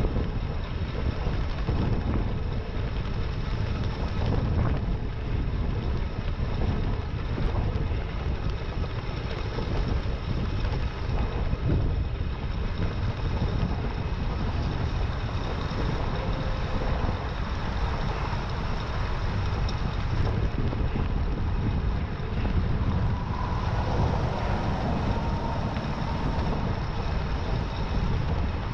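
Steady wind rushing over an action-camera microphone on a moving e-bike, mixed with road noise. A faint steady whine comes in for a few seconds near the end.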